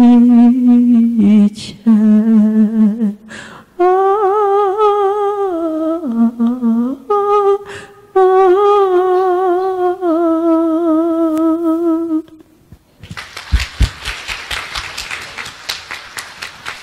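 A solo voice with vibrato ending a slow Bulgarian song: a last sung word, then long held notes without words that stop about twelve seconds in. An audience then applauds.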